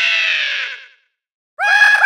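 Laffing Sal, the animatronic laughing lady, playing her recorded high-pitched laugh. It breaks off just before the halfway mark and starts again after a brief silence near the end.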